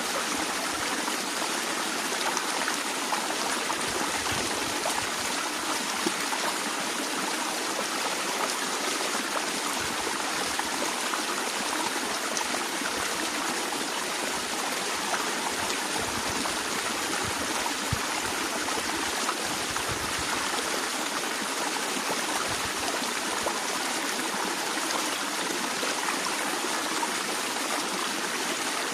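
Stream of water flowing steadily, a continuous even rush and trickle with small splashes and gurgles scattered through it.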